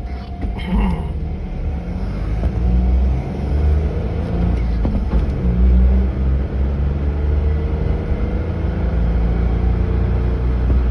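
A vehicle running close by: a steady, loud low rumble with an engine or motor tone underneath that rises about two-thirds of the way through.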